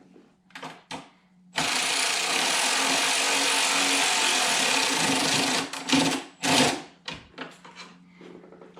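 Snap-on impact driver run on the liner's top screw for about four seconds, then triggered in two short bursts as it snugs down.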